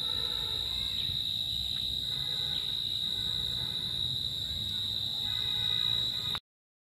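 Insects shrilling at one steady high pitch over a low rumble, cutting off abruptly about six and a half seconds in.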